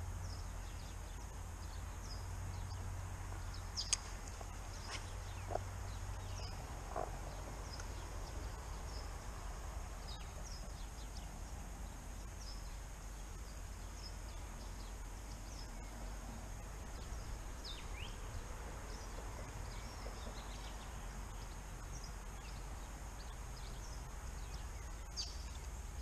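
Riverbank ambience: a steady low wind rumble with scattered short, high bird chirps and a few sharp clicks, the loudest about four seconds in.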